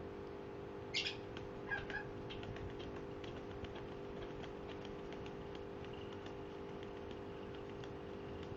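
Pet crow giving one short, sharp call about a second in, then two shorter, lower calls, followed by faint scattered ticks and taps. A steady low hum runs underneath.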